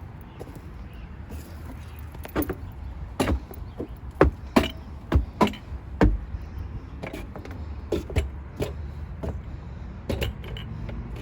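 A series of about a dozen irregular sharp knocks and clicks, loudest in the middle, over a steady low rumble.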